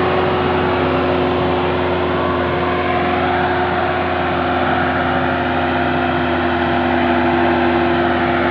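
Massey Ferguson 375 tractor's four-cylinder diesel engine running hard at steady revs, labouring under the load of a heavily laden sugarcane trolley it is trying to haul out of a field.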